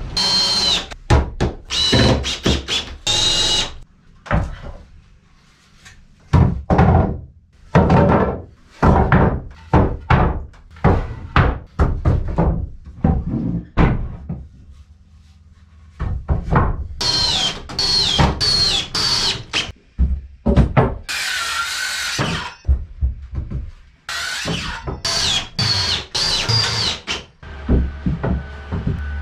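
A long run of sharp knocks and thuds from work on wood, with a brief burst of power-tool noise about 21 seconds in.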